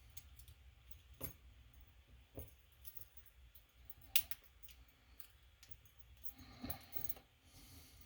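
Small metal clicks and clinks of a tool working inside a Lockwood lock as it is taken apart, with one sharper click about four seconds in.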